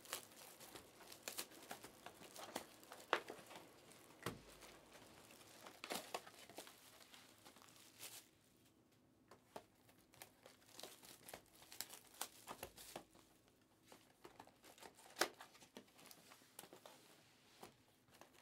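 Faint crinkling and tearing of plastic wrapping as trading-card boxes are unwrapped and opened, in scattered sharp crackles with a short lull about halfway through.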